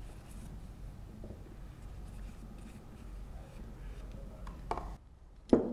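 Light rubbing and dabbing as oil is spread with a small tool onto the rubber O-rings in the pump's cylinder heads. A knock comes near the end, then a louder, sharp clack just at the end.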